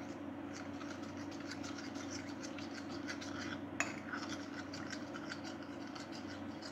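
Metal spoon stirring a cornflour-and-water slurry in a ceramic bowl, scraping and clinking against the bowl in quick repeated strokes, with one sharper clink about four seconds in, over a steady low hum.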